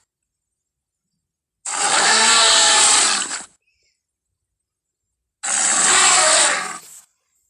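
Two Tyrannosaurus rex roar sound effects, each about two seconds long and noisy, with silence before, between and after them.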